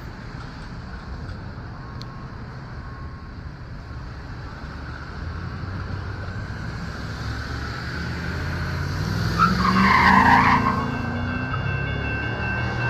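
Road traffic going over the railroad crossing, with the loudest car passing about ten seconds in. Near the end the crossing bell starts ringing steadily as the signals activate for an approaching light rail train.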